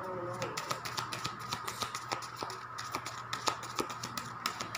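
A deck of tarot cards being shuffled by hand, a quick, irregular run of small clicks and flicks as the cards slap together.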